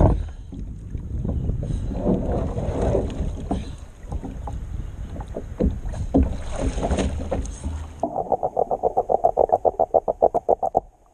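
Water sloshing and splashing against a plastic kayak hull, with knocks, as rope and a derelict lobster trap are hauled aboard. About eight seconds in, the sound turns underwater: a fast, even pulsing of about ten beats a second for some three seconds while a diver works at a trap on the seabed with a hand tool.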